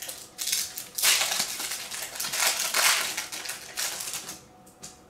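Pokémon booster pack's foil wrapper crinkling and tearing as it is ripped open and the cards pulled out: a run of crackling rustles from about a second in to near four seconds, then a few faint rustles.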